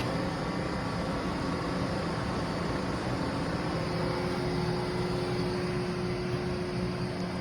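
Lansing engine lathe (24-inch swing, 20-foot centres) running under power: a steady mechanical hum from the spindle drive and gearing, with a faint steady whine coming in about halfway through.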